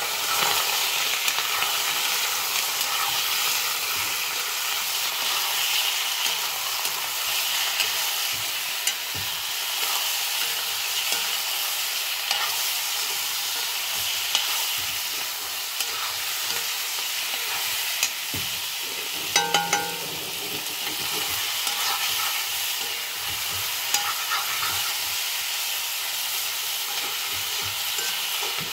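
Chicken pieces sizzling in hot oil in a black wok while a spatula stirs them: a steady frying hiss with occasional scrapes and clicks of the spatula on the pan, and a short cluster of ringing clinks about two-thirds of the way through.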